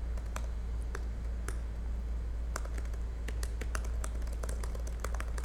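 Typing on a computer keyboard: irregular, quick key clicks over a low steady hum.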